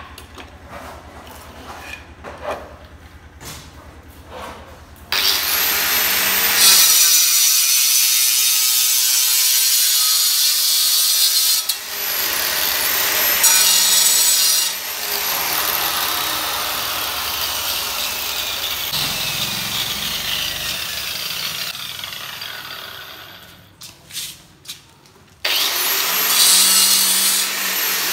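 A handheld electric marble cutter cutting through marble inlay border strips: after a few light clicks of stone pieces being handled, the cutter starts about five seconds in and runs loud and steady through the cut, winds down, and after a couple of knocks starts cutting again near the end.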